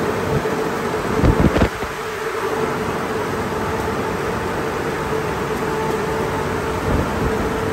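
Car wash tunnel dryer blowers (Holz producer drying system) running: a steady rush of blown air with a buzzing hum. A few low thumps about a second and a half in.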